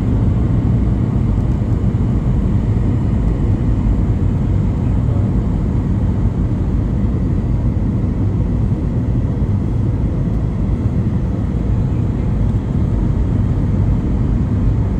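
Steady cabin noise inside a Boeing 737 MAX 8 descending on approach: a loud, even rumble of engines and airflow, heaviest in the low end, with a faint steady hum.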